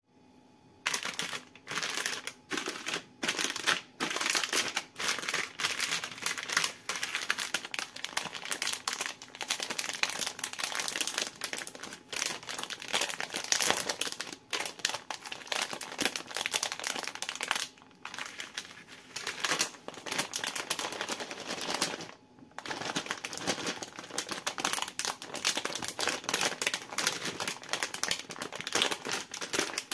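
Plastic film candy bags crinkling as they are handled and squeezed in the hands: a dense, near-continuous crackle that starts about a second in, with a couple of short pauses.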